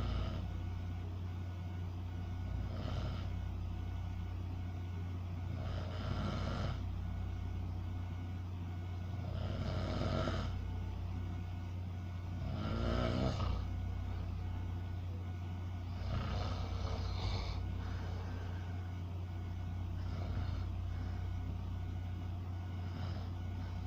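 A sleeping person snoring, about seven breaths spaced three to four seconds apart, with the loudest snore about halfway through, over a steady low hum.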